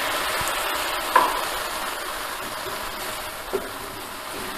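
White wine sizzling in a hot stainless-steel pan of caramelized onions as it deglazes the pan, with a wooden spoon stirring; the hiss slowly dies down. A sharp knock comes about a second in and a lighter one near the end.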